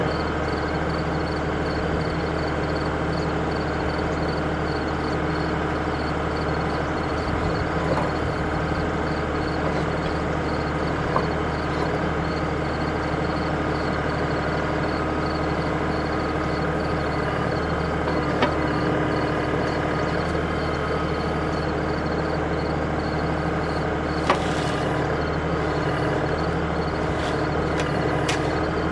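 LS MT240E compact tractor's diesel engine running steadily at a constant speed, with a few single sharp clicks or knocks scattered through.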